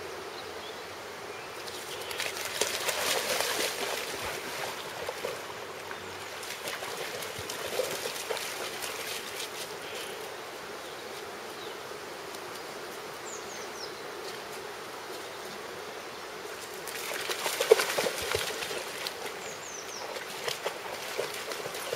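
A shallow river flowing steadily, with a Weimaraner splashing through the water twice, about two seconds in and again near the end, the second time with a sharp splash at its start.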